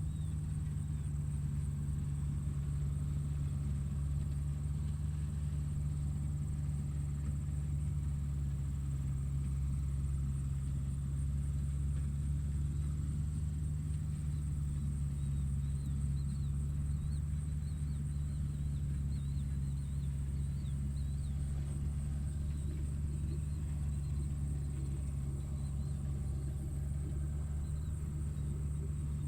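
Tractor engine running steadily, a constant low rumble. A few faint high chirps come and go around the middle.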